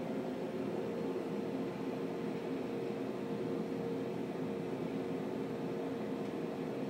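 Steady mechanical hum and hiss with a faint, steady tone held through it.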